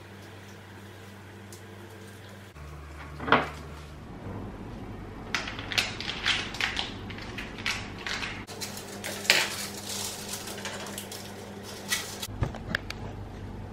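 Kitchen utensils clinking, tapping and scraping against a ceramic mixing bowl as eggs are worked into churro dough and the dough is scooped into a piping bag. A run of sharp clicks and knocks, busiest in the middle, over a steady low hum.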